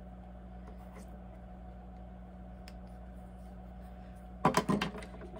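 Steady low electrical hum, then about four and a half seconds in a quick cluster of small sharp clicks and knocks from oil paint supplies being handled on the tabletop.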